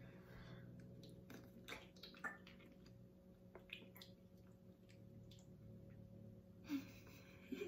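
Near silence with a few faint wet clicks and smacks: fruit jelly being squeezed from small plastic cups and chewed.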